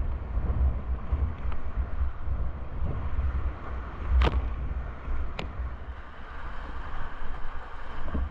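Whitewater river rushing, with wind buffeting the microphone, and two sharp knocks about a second apart midway.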